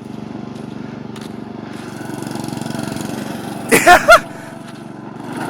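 Small lawn mower engine running steadily, its pitch and level holding with a slight swell. About three and a half seconds in, a person's voice breaks out in three short, loud shouts over it.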